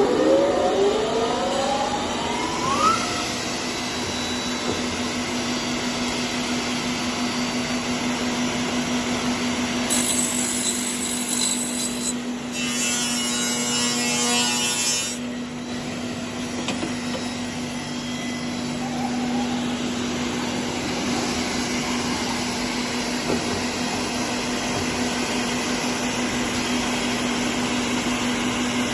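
A finger-jointing woodworking machine running with a steady motor hum. In the first few seconds a rising whine sounds as a motor spins up. About a third of the way in, two loud, hissing cutting passes of a few seconds each come as the cutters go through a wooden blank.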